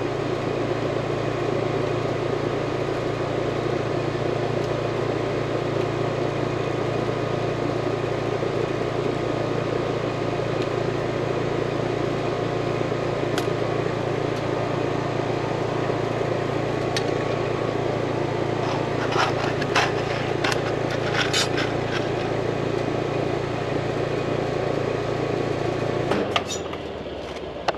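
Steady hum of a running machine with a low drone, cutting off suddenly near the end. A few sharp clicks of hand tools come about two-thirds of the way through.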